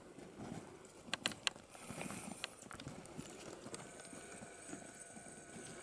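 Footsteps of several hikers on loose shale rock: stones crunching and shifting underfoot, with a few sharp clicks of rock striking rock about a second in.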